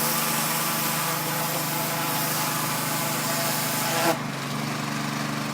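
Pressure washer running, its engine humming steadily under the loud hiss of the water spray. About four seconds in the spray cuts off suddenly while the engine keeps running.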